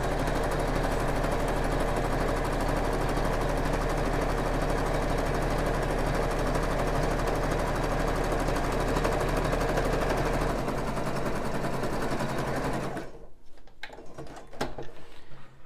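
Juki sewing machine stitching elastic onto a fabric bra band, running steadily; its pitch drops a little about ten seconds in. It stops abruptly near the end, leaving a few faint clicks.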